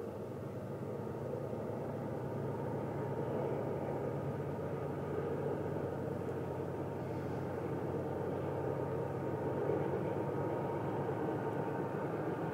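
Distant train rumbling, growing slowly louder as it approaches.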